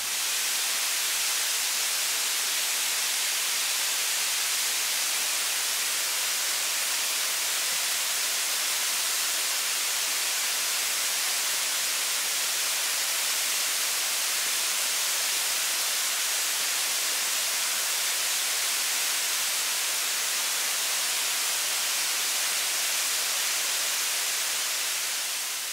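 A waterfall with about a 77 m drop, heard close to its base: a steady, loud hiss of falling water. It fades in at the start.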